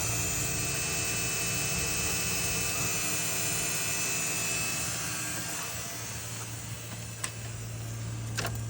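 Electric fuel pump of a 2003 Dodge Ram priming with the key on: a steady whir that fades away about five to six seconds in, leaving a low steady hum.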